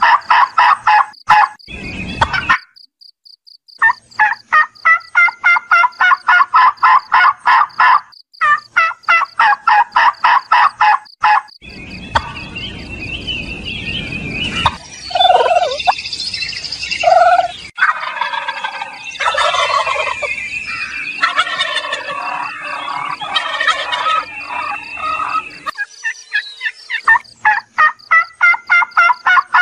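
Domestic turkeys gobbling: long runs of rapid, evenly pulsed gobbles over roughly the first eleven seconds and again near the end, with a middle stretch of scattered shorter calls over background noise.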